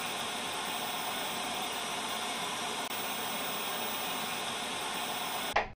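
Steady white-noise hiss like TV static, part of an intro logo sound effect. It cuts off abruptly near the end with a brief louder blip.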